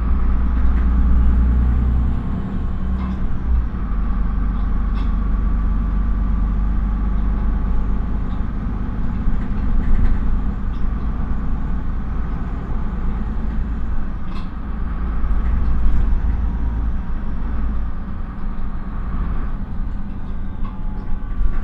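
Interior running noise of a Solaris Urbino 15 III city bus under way: the low drone of its 9.2-litre DAF PR228U1 diesel engine and road rumble, with a few light rattles. The drone swells briefly about ten and sixteen seconds in.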